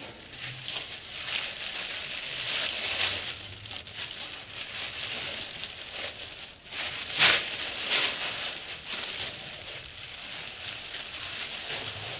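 Clear plastic wrapping crinkling and rustling as pieces are pulled out of plastic bags and the bags are handled, with a louder burst of crinkling about seven seconds in.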